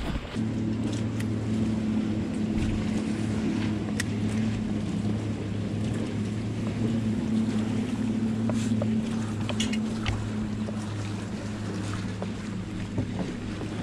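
Boat engine running steadily with a low hum, and a few light knocks.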